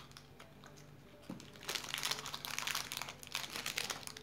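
Crinkly plastic lollipop wrapper being handled and crumpled, a dense run of crackling starting a little under two seconds in.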